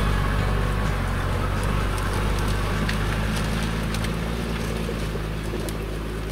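A Mercedes G-Class's 3-litre diesel engine pulls steadily up a rocky track, growing gradually fainter as the vehicle drives away. Sharp scattered clicks and crunches of stones come from under the tyres.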